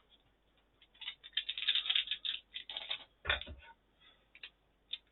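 Trading cards and a foil booster-pack wrapper being handled on a table, with rustling and crinkling and one knock against the table about three seconds in.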